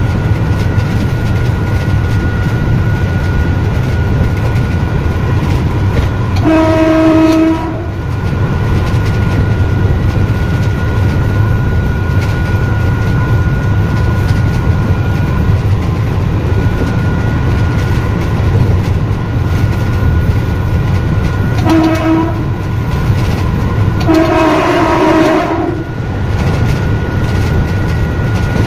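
Electric multiple-unit train running at speed, heard from the driving cab: a steady rumble with a thin high whine over it. Its horn sounds three times: a blast of about a second roughly six seconds in, then a short toot and a longer blast of nearly two seconds around twenty-two and twenty-four seconds in.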